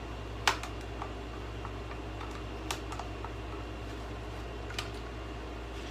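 A few irregular small clicks and taps of the taken-apart alarm clock's parts being handled, the sharpest about half a second in, over a steady low hum.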